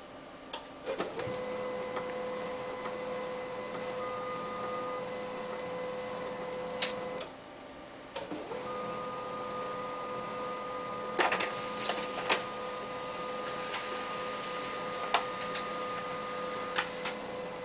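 Desktop laser printer running: a steady mechanical whine starts about a second in, stops for about a second midway, then starts again and runs on, with a higher tone over part of each run. Sharp clicks and clacks from the printer's mechanism are scattered through it, the loudest cluster about two-thirds of the way through.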